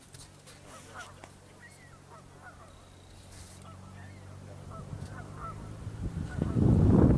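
Geese honking repeatedly, many short calls. Under them a low engine hum builds and swells into a loud rushing pass near the end, a vehicle going by on the road.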